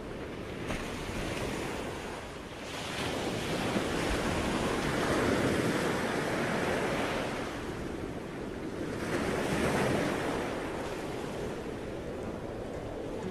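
Ocean surf breaking on a sandy beach, the wash swelling and easing in long surges. Wind buffets the microphone throughout.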